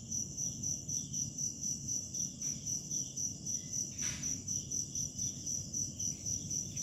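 Cricket chirping: a steady high-pitched trill pulsing about three times a second, with a faint knock about four seconds in.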